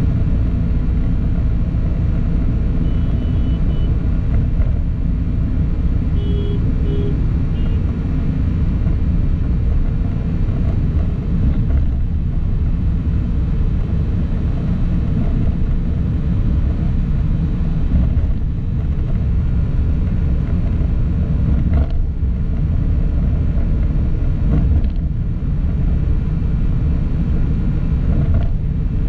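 Steady low rumble of a vehicle driving on city roads: engine and tyre noise heard from the moving vehicle.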